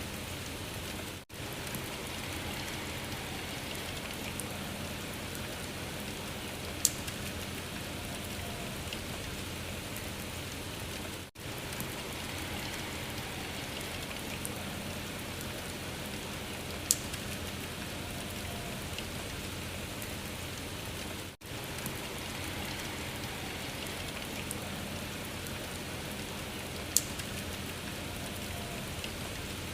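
Steady rain-like hiss and patter over a faint low hum, from a short recording looped about every ten seconds with a brief drop-out at each join. One sharp pop comes in each loop.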